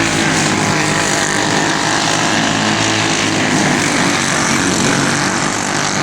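Racing kart engines, single-cylinder Briggs & Stratton Animal four-strokes, running hard at a steady drone.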